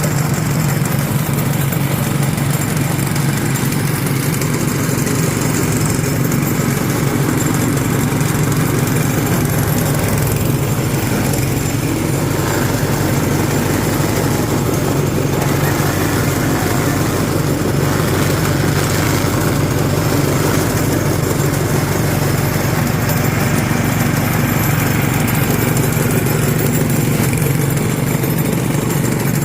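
Multipurpose shredder's motor running steadily at high speed while it shreds plant material for fermented animal feed.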